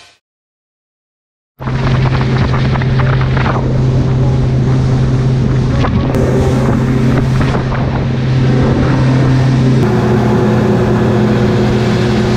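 300-horsepower outboard motor running at speed: a steady engine drone with wind on the microphone. It starts about a second and a half in, and its pitch shifts slightly near ten seconds in.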